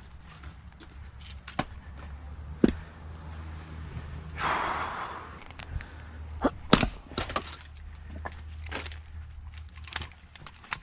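Firewood being split by hand: two sharp splitting blows, the first about a quarter of the way in and the second just past halfway, with smaller knocks of wood between and after. A rushing noise lasting about a second falls between the blows, over a steady low hum.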